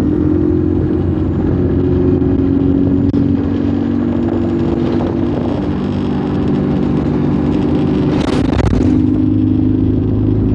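ADL Enviro200 Dart single-decker bus's diesel engine running steadily while the bus is under way, heard on board, with a brief burst of noise about eight seconds in.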